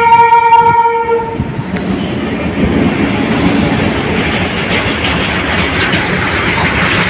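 A train horn sounds one blast lasting about a second and a half, then a freight train runs past on the rails with a steady rumble and clatter of its wagons.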